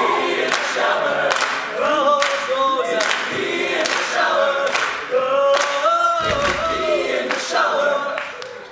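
All-male a cappella group singing in close harmony, with a sharp beat about every three-quarters of a second. The level dips just before the end.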